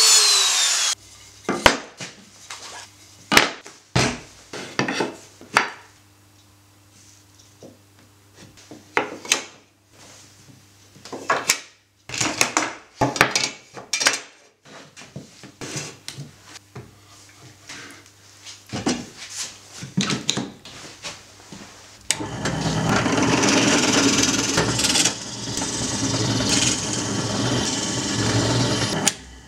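A handheld power tool cuts off about a second in. Then comes a run of separate wooden knocks, taps and clatter as oak door-frame pieces are handled and fitted together. For the last seven seconds or so a bench drill press runs steadily, boring into oak.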